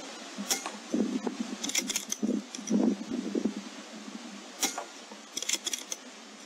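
Steady hiss with scattered sharp clicks, some in quick clusters, and low rustling patches in the first half.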